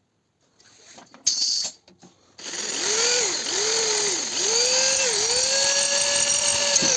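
Electric power tool running in a metalworking shop. A short burst comes a little over a second in, then the motor runs continuously from about two and a half seconds in. Its pitch sags and recovers several times, then holds steady.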